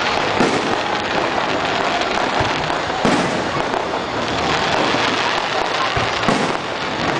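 Fireworks going off: continuous crackling, with three sharper bangs about a third of a second, three seconds and six seconds in.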